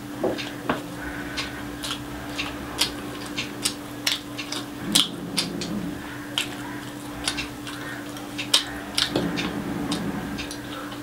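Close-miked chewing and lip-smacking of rice and egg, with fingers squishing rice on a plate: irregular wet clicks several times a second, a few louder ones in the middle, over a steady low hum.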